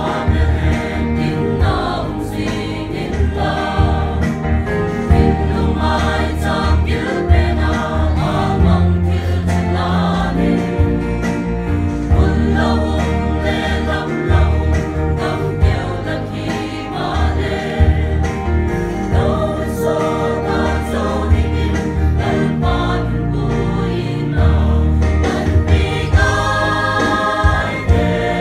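Mixed choir of men's and women's voices singing a gospel hymn in parts through a PA, with a strong bass accompaniment underneath.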